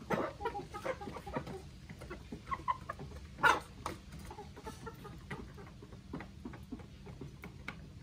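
A flock of hens and roosters clucking while they peck at grain, with quick short ticks of pecking throughout and one louder call about three and a half seconds in.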